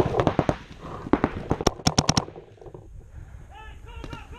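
Paintball markers firing rapid strings of shots, with the sharp cracks easing off about two seconds in.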